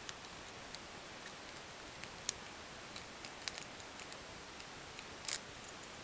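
Lock pick and tension wrench working in a Brinks padlock: small, sharp metallic clicks and ticks at an irregular pace, with the loudest about two seconds in and a short cluster about five seconds in, over a steady hiss.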